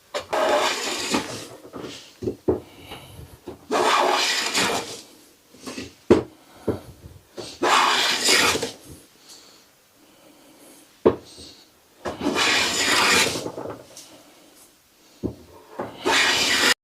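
Hand plane cutting along the length of a board in long strokes, each lasting a second or two, with a sharp knock between strokes. The strokes take full-length shavings, one continuous cut from end to end.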